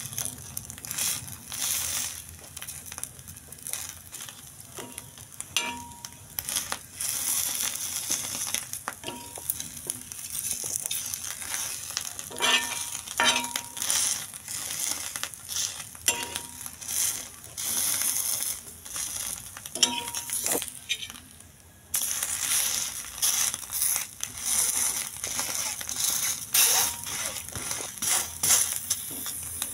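Egg frying in oil on a flat iron griddle, sizzling steadily, with a steel spoon scraping and tapping on the griddle as it presses and turns the egg. The sizzle drops away briefly about three-quarters of the way through, then comes back suddenly.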